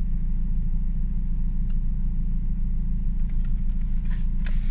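Car engine running, a steady low rumble heard from inside the cabin, with a brief hiss near the end.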